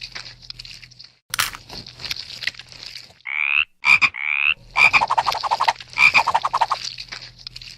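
Dry crackling and crunching, then two short rising squeaky calls about three seconds in, followed by a fast rattling, croak-like call.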